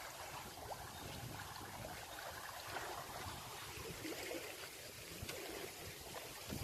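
Floodwater flowing past a bank with a steady rush and trickle.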